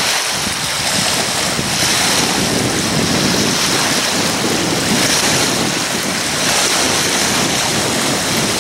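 Small lake waves washing and breaking on a sandy shore, with steady wind buffeting the microphone.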